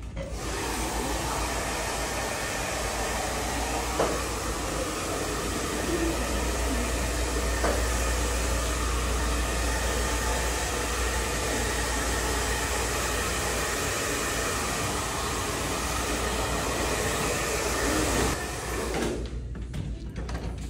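Handheld hair dryer blowing hair, a steady rushing hiss that switches on just after the start and off near the end, with a small knock about four seconds in.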